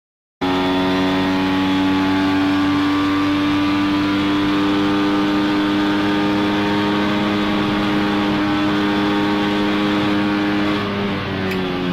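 Two-stroke engine of a 1963 Saab Sport tuned to Group 2, heard from inside the cabin, running hard at steady high revs after cutting in about half a second in. Near the end the revs drop.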